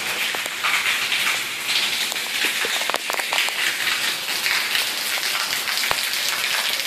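Water leaking from an overhead pipe and splashing onto a wet concrete floor: a steady hiss with scattered drips and splats.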